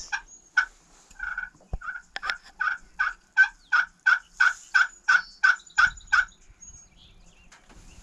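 A long, even run of turkey yelps, about three notes a second and some sixteen in all, stopping about six seconds in. A single low knock comes near the start of the run.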